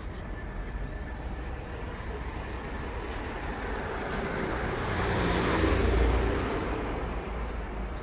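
A car driving past, its engine and tyre noise swelling to a peak about six seconds in and then fading, over a steady low hum of traffic.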